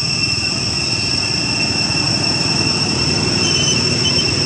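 Motor scooter engine running as it passes, a low rumble, over a steady high-pitched drone.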